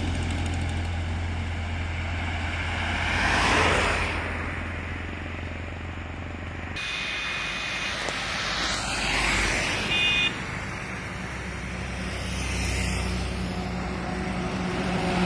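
Highway traffic passing close by: a mobile crane's engine hum, then cars and a motorcycle going past, with a brief high beep about ten seconds in and a truck's engine growing louder near the end.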